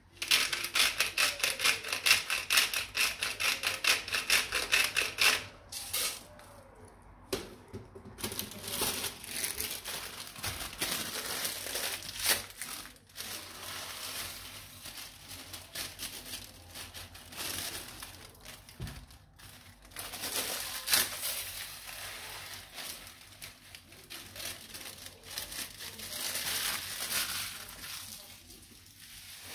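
Plastic bag of rice crinkling, with a loud run of rapid crackles for about the first five seconds. It then rustles on and off more softly as the rice is poured from it into a saucepan of water.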